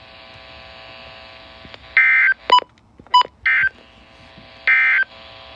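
Weather radio EAS/SAME end-of-message data bursts: three short, loud warbling digital bursts about a second apart, signalling the end of the alert. Two brief beeps fall between the first and second bursts, over a steady background hum.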